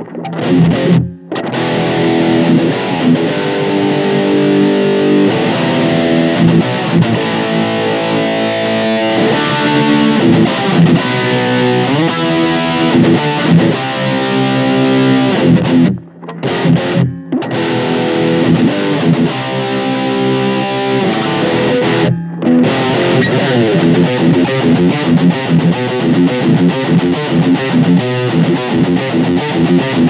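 Schecter Reaper-6 FR S six-string electric guitar played with heavy distortion: continuous riffs and runs, with brief breaks about halfway through and again a few seconds later.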